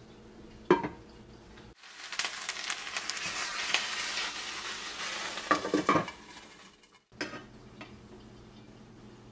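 Chicken breast sizzling in a frying pan, with metal tongs clicking against the pan and meat as the pieces are turned. The sizzling starts abruptly about two seconds in and cuts off suddenly about seven seconds in. There is a single sharp click before it and another just after.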